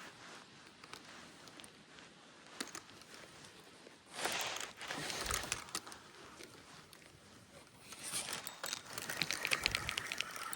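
Rustling handling noise from clothing and gear in two spells, a short one about four seconds in and a longer one from about eight seconds, the later one full of rapid small clicks.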